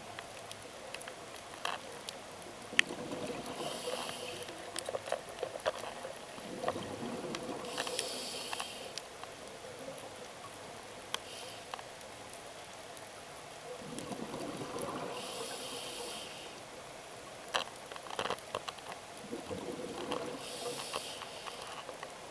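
Scuba diver breathing through a regulator, heard underwater: four bursts of exhaled bubbles several seconds apart, with scattered sharp clicks.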